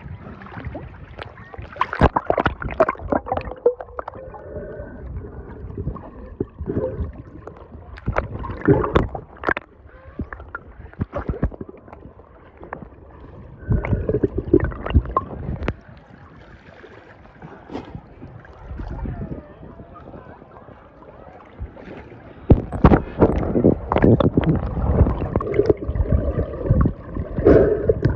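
Water splashing and sloshing in irregular bursts, loudest near the end.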